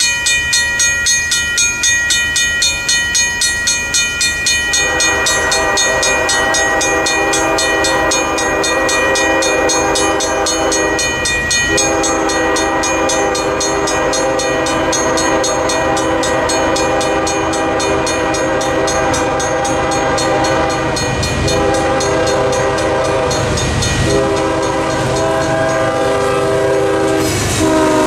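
Safetran mechanical crossing bell ringing with rapid, even strokes. About five seconds in, an approaching BNSF GE freight locomotive's air horn starts sounding over it in long blasts with a few short breaks. The locomotive reaches the crossing near the end.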